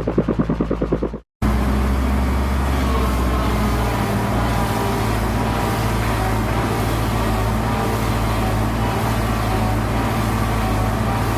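Cartoon vehicle engine sound effect. A fast pulsing chug cuts off about a second in, and after a brief gap a steady engine hum runs on evenly.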